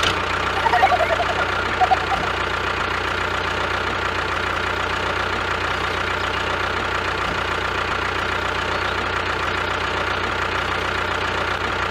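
Tractor engine running steadily at idle, an even, unchanging engine sound.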